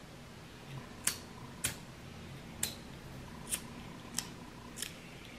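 Hand-held lighter being struck again and again: about six sharp clicks, unevenly spaced, as it fails to light.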